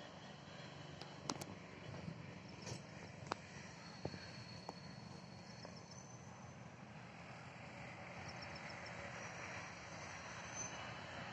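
Faint, distant 12-car electric multiple unit train approaching on the line, a low running noise that grows slowly louder. There are a few sharp clicks in the first seconds, and short high insect chirps.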